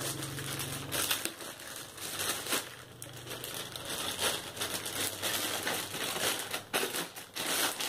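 Thin clear plastic bag crinkling and crackling in irregular bursts as a guitar effects pedalboard is pulled out of it.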